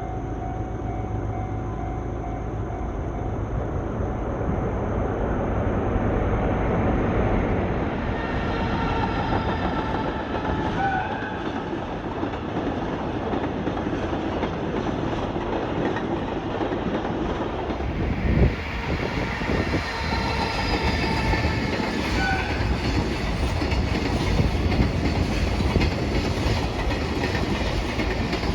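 A JR Freight container train hauled by an EF210 electric locomotive running past, with a continuous rumble and wheels clattering over the rail joints. Thin high ringing tones come and go twice along the way.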